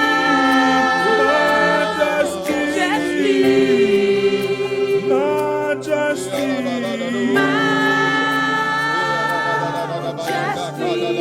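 Worship team singing slowly, holding long notes and gliding between pitches, over steady low accompanying notes that shift about two seconds in and again past the middle.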